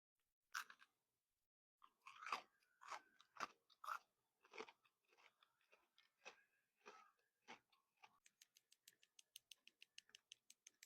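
Crystal candy bitten with a sharp crack, then chewed in irregular crunches close to the microphone. Near the end it turns into a quick run of light, even clicks, about six a second.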